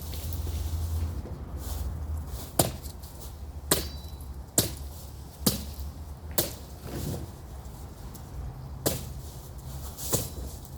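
Machete chopping brush and small trees: about seven sharp strikes, roughly one a second, with a short pause partway through.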